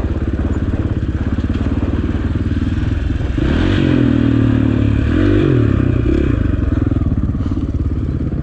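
Dirt bike engine running at low revs. It rises in pitch with the throttle about three and a half seconds in, rises and falls again around five seconds, then settles back.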